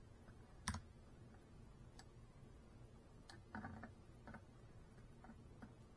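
Near silence with a low hum and a few faint, scattered clicks and taps. The sharpest click comes under a second in, and a short cluster of soft taps falls a little past the middle.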